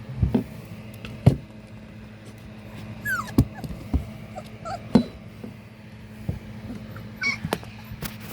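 Young husky puppies giving a few short, high whimpers and squeaks, one sliding down in pitch about three seconds in, among several sharp knocks.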